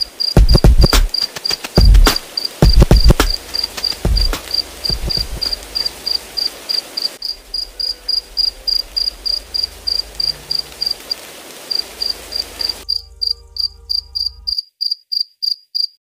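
Electronic track ending on a looped insect chirp that pulses evenly about four times a second. Heavy kick-drum hits sound through the first few seconds over a low bass. The backing hiss cuts out near the end, then the bass, leaving the chirps alone.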